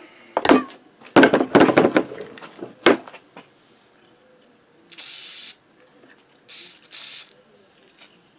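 Several hard clunks of tools being set down on a wooden workbench, then three short hisses of a WD-40 aerosol spraying penetrating oil onto a seized part of a Motobécane AV89 moped engine to free it.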